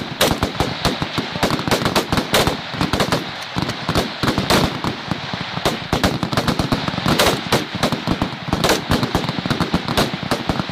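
Rifle fire from a line of 5.56 mm service rifles (M16A2 rifles and M4 carbines) shooting at once: sharp shots at irregular spacing, several a second, overlapping one another.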